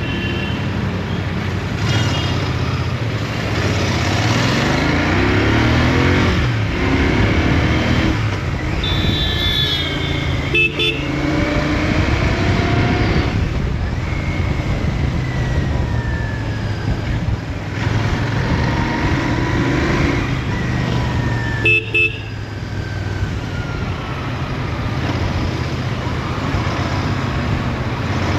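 Royal Enfield Interceptor 650's 648 cc parallel-twin engine running through its stock exhaust while riding in city traffic, its pitch rising and falling as it revs and eases off, with wind rushing past. Short horn beeps twice, about eleven and twenty-two seconds in.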